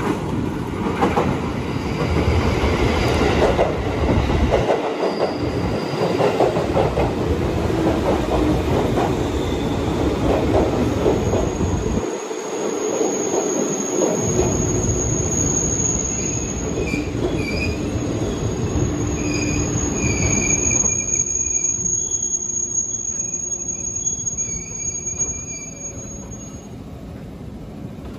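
A JR 205 series electric commuter train pulling in along the platform: rolling wheel-on-rail noise, with a high, steady brake squeal and shorter squeals as it slows. The running noise dies down about 21 seconds in as the train comes to a stop.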